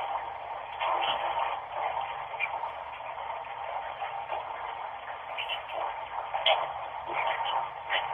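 Tap water running steadily, an uneven rushing hiss with a few small clicks and splashes.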